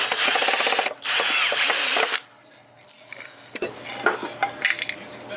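Power drill running in two runs of about a second each, driving screws into the wooden table, then stopping; a few light knocks follow.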